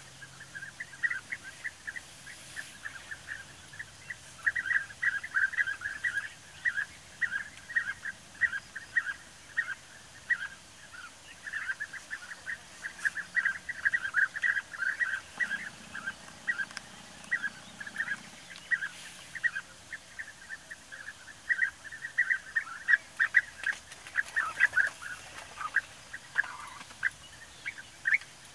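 European bee-eaters calling, a near-continuous chatter of short rolling chirps from several birds, with busier stretches at times.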